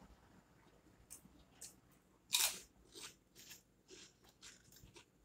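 Close-up crunching and chewing of a crispy fried strawberry twist: a string of short crunches, with one loud bite about two and a half seconds in.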